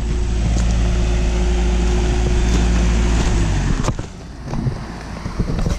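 A vehicle engine running steadily, which drops away about three and a half seconds in, followed by a single knock.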